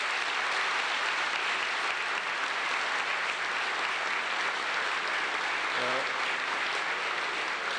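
Large audience of seated delegates applauding steadily. A brief voice cuts through the clapping a little after halfway.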